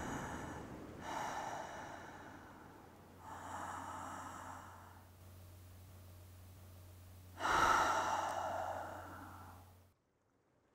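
Sea waves washing in: three swells of surf that rise and fade, the last one the loudest. The sound then cuts off suddenly near the end.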